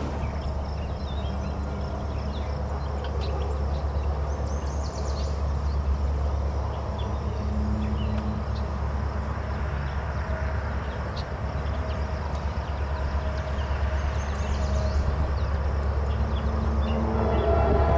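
Low, steady rumble of a just-passed double-stack intermodal freight train moving away, with a few birds chirping. About a second before the end, a diesel locomotive horn starts sounding from the next train approaching the crossing.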